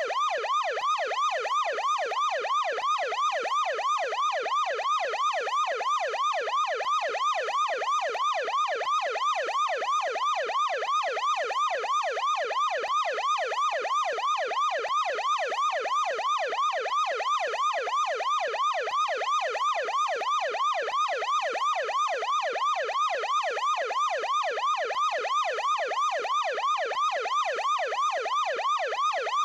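Ambulance yelp siren wailing in a fast, even up-and-down sweep, several cycles a second, with no change in rhythm or level.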